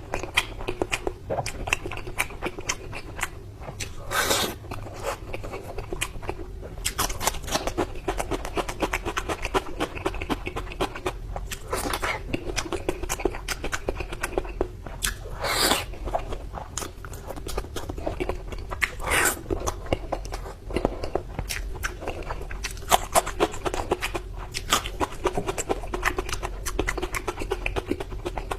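A person chewing and biting food close to the microphone: a dense run of small crackling clicks, broken by several louder crunches.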